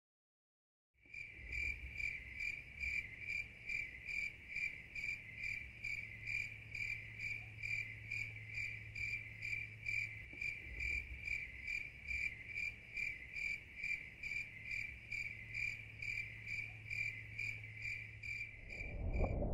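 A cricket chirping steadily, one high note repeated about two to three times a second, over a faint low hum. A louder rushing noise swells in at the very end.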